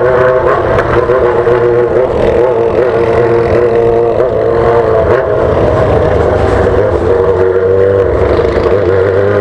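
Yamaha XJ6's 600 cc inline-four running loud through an 8-inch straight exhaust pipe with no muffler, on the move at low speed, its pitch wavering up and down a little as the throttle is worked.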